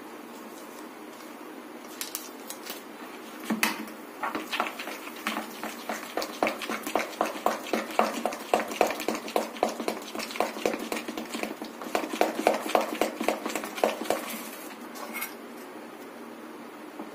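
Steel spoon stirring thick idli batter in a bowl, mixing in fruit salt: a fast run of clicks and scrapes against the bowl, about four strokes a second. It starts a few seconds in and stops about three seconds before the end.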